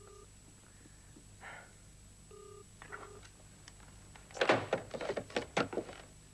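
Faint telephone ringing tone in a double-ring pattern, two short rings close together, heard twice as the call goes unanswered. Then a clatter of several sharp knocks as the handset is put down on the desk telephone.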